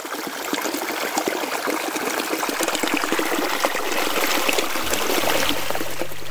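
Small rocky mountain stream trickling and splashing over stones in a steady babble, fading in over the first second. Near the end, soft music notes start underneath.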